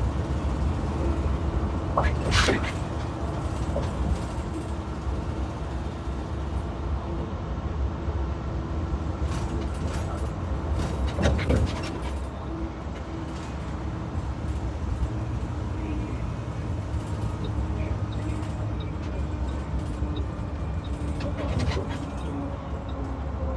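2022 IC CE gasoline school bus running with a steady low rumble and a faint constant hum, and sharp rattles about two and eleven seconds in. The bus has an exhaust leak, which the owner puts down to a faulty catalytic converter.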